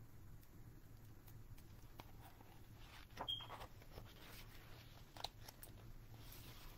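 Near silence with a faint low hum, as a page of a large picture book is turned: a soft paper rustle about three seconds in and a light click a couple of seconds later.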